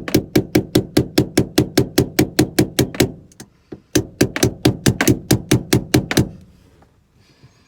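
Rapid, even tapping, about five or six sharp strikes a second, as a shifter cable retaining clip is hammered down onto the shifter; the taps break off briefly about three seconds in, start again, and stop about six seconds in with the clip still not fully seated.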